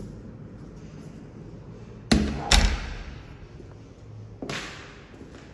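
An interior door being worked by its metal lever handle: two sharp knocks about half a second apart, then a softer one near the end.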